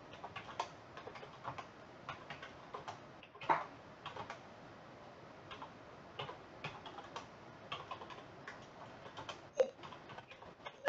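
Computer keyboard being typed on: irregular key clicks, with two louder presses about three and a half seconds in and near the end.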